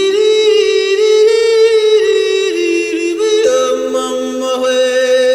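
Music: a voice singing long held notes that change pitch a couple of times.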